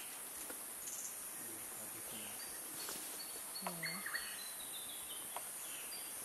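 Tropical forest ambience: a steady high-pitched insect drone with scattered bird whistles and chirps, and a louder animal call about three and a half seconds in.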